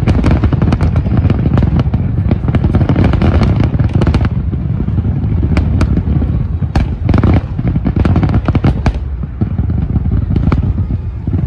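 Fireworks going off in rapid succession: a dense run of crackling bangs for about four seconds, then fewer, separate bursts over a deep rumble.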